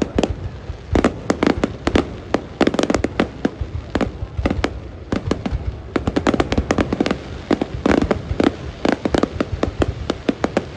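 Fireworks display: many sharp bangs and pops going off in quick, irregular succession, several a second, over a constant low rumble.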